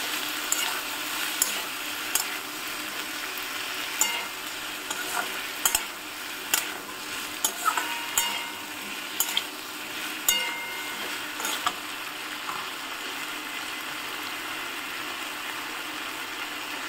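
Beans, potatoes and tomato with spice paste sizzling steadily as they fry in a little oil in a pan, stirred with sharp clicks and scrapes of the utensil against the pan. The clicks stop about twelve seconds in, leaving the sizzle alone.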